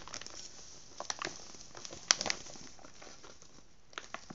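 A bag of flour crinkling in the hand as the flour is poured out into a bowl, with a few short crackles spread through.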